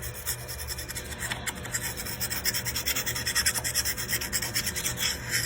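A 200-grit teardrop honing stone scraped quickly back and forth along a rusty steel skate blade, a rapid rasping run of strokes, taking off loosened rust and deburring the edges.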